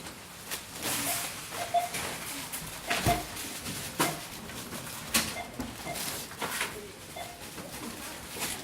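Supermarket ambience: a steady murmur of indistinct activity with scattered knocks and clatter, the sharpest about three and five seconds in, and faint short tones now and then.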